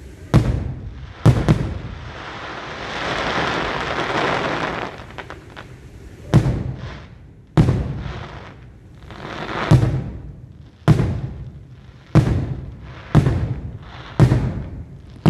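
Aerial fireworks shells bursting: two sharp booms near the start, a stretch of dense crackling from about two to five seconds in, then a string of booms about a second apart, each dying away over about a second.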